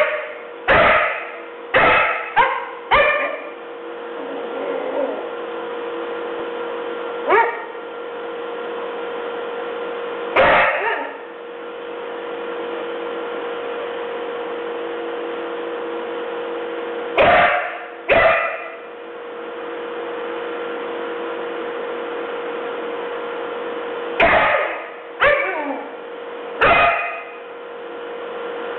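Dog barking in short single barks with pauses between them: a quick run of four in the first three seconds, single barks around 7 and 10 seconds in, two near the middle and three more near the end, over a steady hum.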